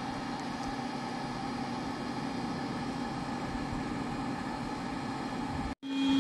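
Air blower running steadily with a droning hum, forcing air through a pipe into a charcoal-fired concrete-block smelting furnace. It cuts out for an instant near the end and comes back louder.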